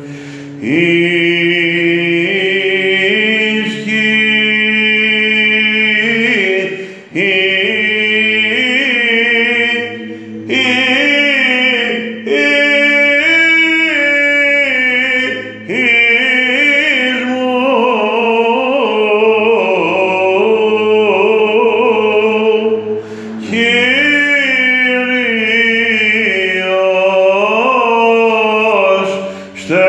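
A male cantor chants a Byzantine hymn in the plagal first mode, a slow melismatic line with many sliding ornaments and short breaths, over a steady low held drone (ison).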